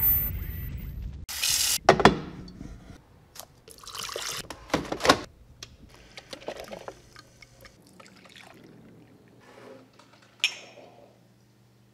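Coffee-making sounds: liquid pouring and splashing, with knocks. About ten and a half seconds in comes a single sharp ringing clink of two ceramic coffee mugs knocked together in a toast.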